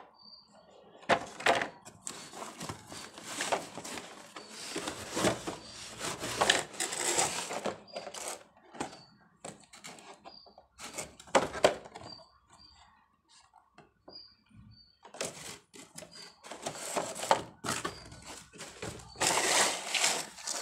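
Plastic blister packs of toys on card backings being handled. The clear plastic crinkles and rustles in irregular bursts, with knocks as the packs are set down against one another.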